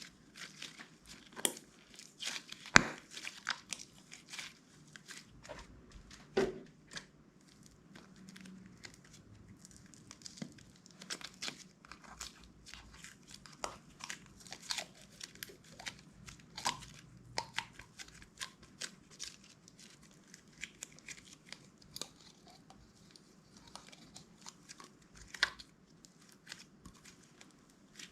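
Clear slime being worked by hand, with many irregular sharp clicks and crackling pops.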